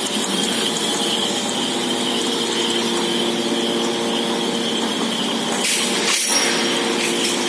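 Horizontal ring-type stretch-wrapping machine for aluminium profiles running: a steady high whine over a low mechanical hum, with a short burst of noise about six seconds in.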